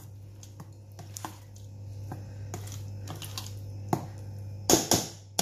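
Metal spoon stirring thick whipped yogurt and crushed pistachios in a stainless steel bowl: irregular light clicks and scrapes of spoon on steel, with a few louder knocks near the end, over a low steady hum.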